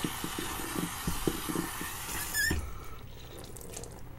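Tap water running into a bathroom sink with irregular splashing as water is scooped onto the face to rinse off shaving lather. About two and a half seconds in, a short squeak as the tap is turned off, and the running water stops.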